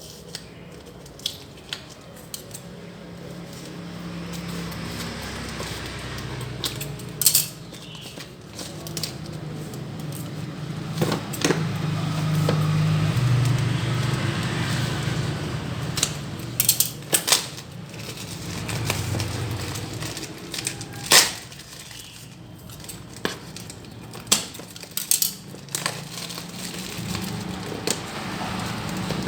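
Packaging being handled: irregular sharp clicks, taps and crackles of cardboard and plastic, over a low hum that swells and fades.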